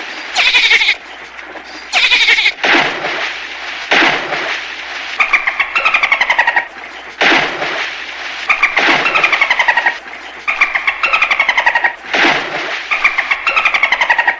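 Dolphins calling: a rapid series of buzzing, chattering pulsed calls, several of them sliding down in pitch, one after another every second or two.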